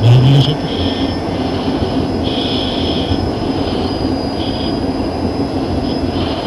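Steady roar of noise inside an F-16 cockpit in flight, from the jet engine and the air rushing past, with on-and-off hissing throughout. A short, loud, low rising tone sounds right at the start.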